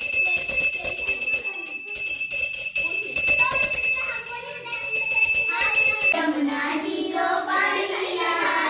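A bell ringing continuously during aarti, struck rapidly so that it keeps up a steady high ring. About six seconds in it cuts off and children's voices chatter.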